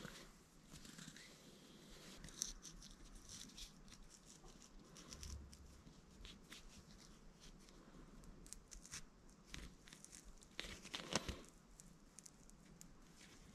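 Faint rustling and crinkling of a paper towel being folded and twisted in the hands, with scattered small clicks. A louder burst of rustling comes about eleven seconds in.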